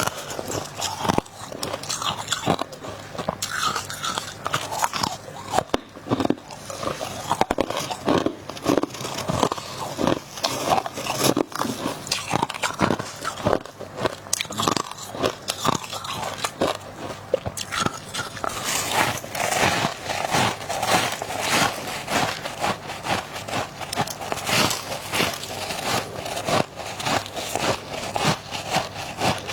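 Close-up biting and chewing of ice, a run of crisp crunches that grows denser and faster from a little past the middle.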